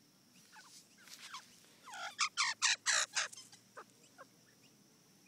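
Australian magpie calling at close range: a few short, quiet notes, then about two seconds in a loud, rapid run of six or seven calls lasting just over a second.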